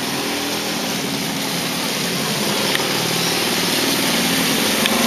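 A small engine running steadily under a constant rushing noise, growing slightly louder.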